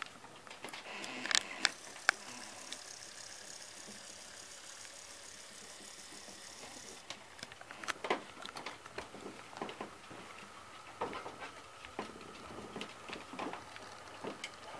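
HO-scale model train running on track: light, irregular clicks and ticks from the wheels of a Metra MP36 model locomotive and its cars passing over rail joints and turnouts. The clicks come closer together in the second half as the train approaches.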